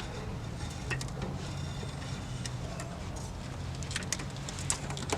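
A few light, irregular metallic clicks and clinks from engine parts and hand tools being handled, over a low steady hum.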